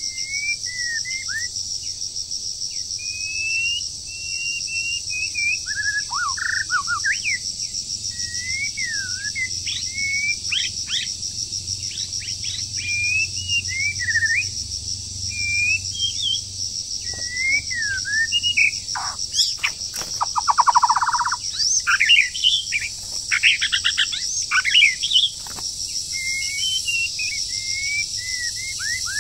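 A songbird singing a long, varied series of whistled phrases, with louder harsh notes and a short churring rattle about two-thirds of the way through, over a steady pulsing insect chorus.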